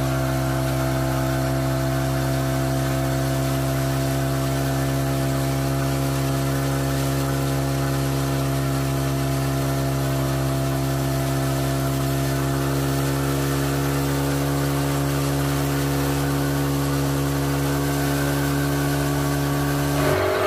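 Speedboat engine running at a steady, unchanging speed, as when towing a riders' inflatable, cutting off suddenly near the end.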